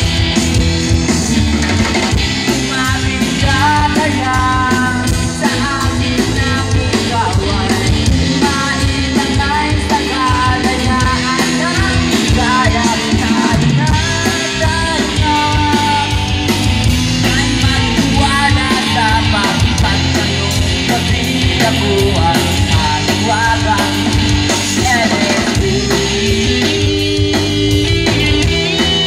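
Live rock band playing at a steady loud level: electric guitars and a drum kit amplified through a PA system.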